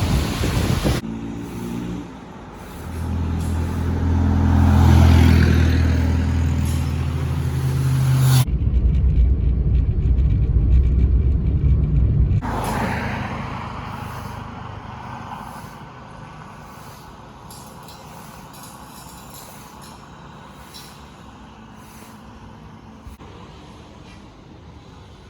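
A motor vehicle's engine drones close by, loudest about five seconds in. After about twelve seconds it fades to a steady, quieter background noise.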